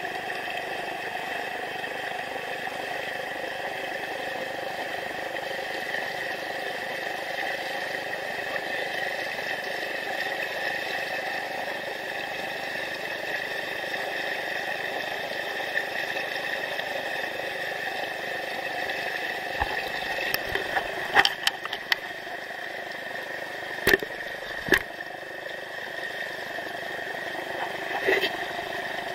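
River rapids rushing steadily over rocks, close by. A few sharp knocks come in the last third.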